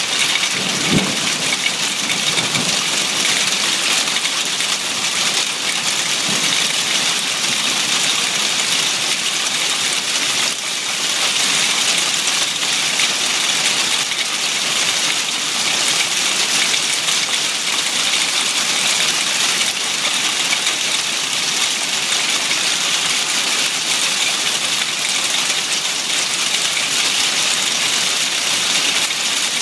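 Hail and heavy rain pelting the ground and pavement in a dense, steady hiss.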